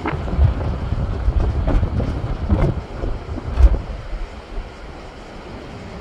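Sea waves breaking and washing over shoreline rocks, a deep surging rumble of surf that swells to its loudest about three and a half seconds in and eases off near the end. Wind buffets the microphone throughout.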